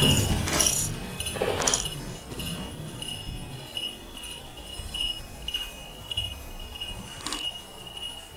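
Small metal bell jingling, a high ringing that swells and fades in irregular pulses. Low rumbling and rustling are loudest in the first second or two.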